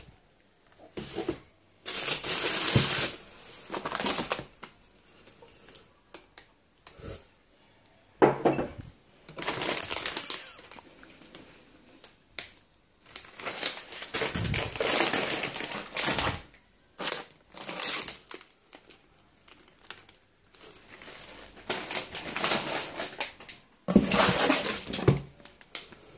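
Plastic and foil packaging crinkling and rustling in irregular bursts as it is handled, with short quiet gaps between.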